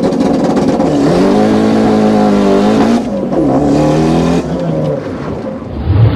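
Racing car engine revving, its pitch dipping and climbing again a few times, with a louder low burst near the end.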